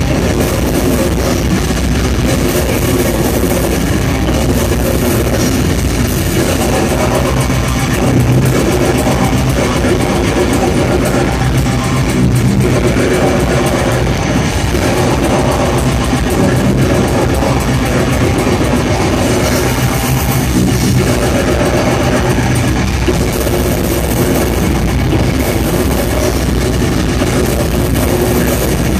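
Death metal band playing live: distorted electric guitars, bass and drum kit, loud and unbroken, with the vocalist growling into the microphone at times.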